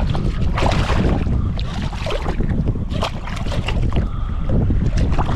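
Wind buffeting the microphone in a steady low rumble, with water splashing and slapping as a hooked striped bass thrashes at the surface beside the kayak.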